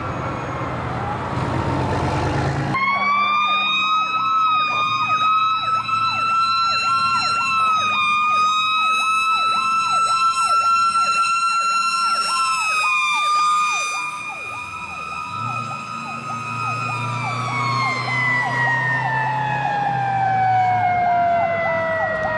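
Fire engine sirens sounding together. A mechanical siren winds up, holds a high wail and then winds down with falling pitch over the last few seconds. Under it an electronic siren runs a fast yelp, about three sweeps a second, with the truck's diesel engine heard as it passes.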